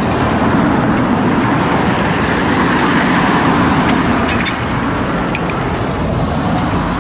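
Steady street traffic noise, with a car driving close past about three seconds in. A few short clicks near the middle.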